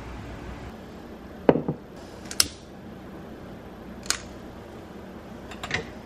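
A handful of sharp clicks and light taps over a steady faint hiss, about five in all; the loudest, about a second and a half in, has a short ringing tail.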